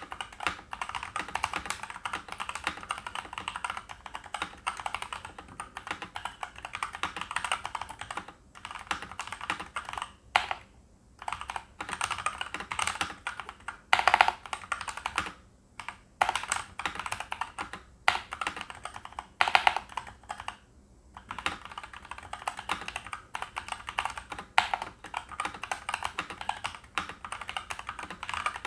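Typing on a Hexgears Hyeku GK715 mechanical keyboard with stock, unlubed Yusha red linear switches and ABS keycaps in a foam-modded case: a fast, steady run of keystrokes broken by a few short pauses, with a handful of louder strikes.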